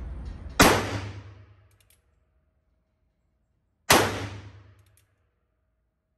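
1923 Colt Single Action Army revolver firing .45 Colt: two single shots about three seconds apart, each a sharp report followed by about a second of ringing decay.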